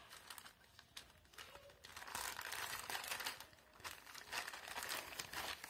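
Plastic courier mailer bag crinkling and rustling as hands open it and pull a book out. Faint scattered crackles at first, then continuous crinkling from about two seconds in.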